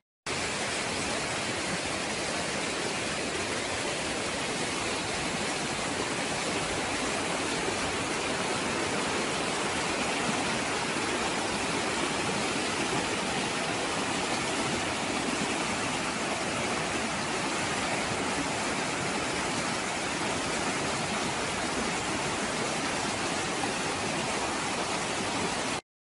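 Fast river water rushing over rocks: a steady, even rush of white water that starts suddenly and cuts off suddenly near the end.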